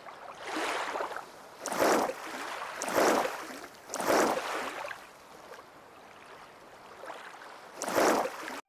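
Cartoon water sound effects for a swimming whale calf: a series of swishing splashes, four about a second apart, then a pause and one more near the end.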